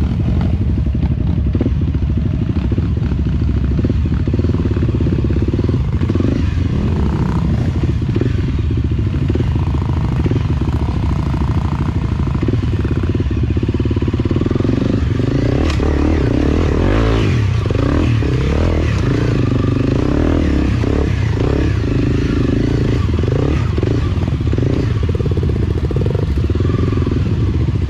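Enduro motorcycle engine running at low speed, its revs rising and falling as it creeps along a trail, with some clatter.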